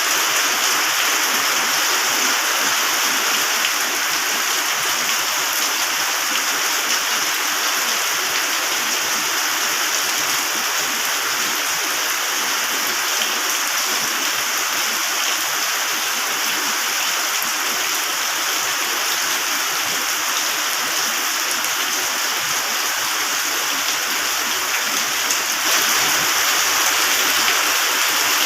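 Heavy rain falling steadily as a dense, even hiss, growing a little louder near the end.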